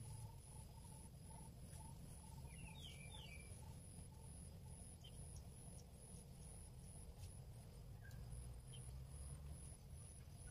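Near silence in the open air: a faint low rumble, a thin high insect call pulsing evenly throughout, and a short bird call of four quick notes about two and a half seconds in.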